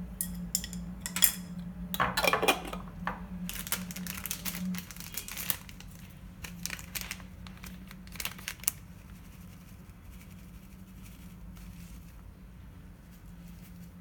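Packaging crinkling, with sharp clicks and light clinks of things being handled, busiest in the first half and loudest about two seconds in, then dying away. A low steady hum runs underneath.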